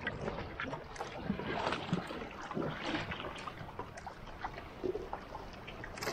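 Water lapping and splashing against the hull and bamboo outriggers of a wooden outrigger boat moving through shallow water, in small irregular splashes.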